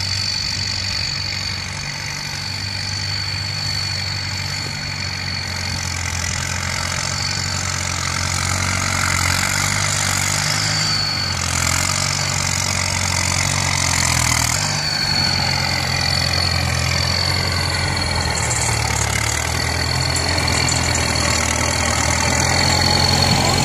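Kubota farm tractor's diesel engine running steadily while it pushes a pile of soil with its front blade, growing louder as it comes closer.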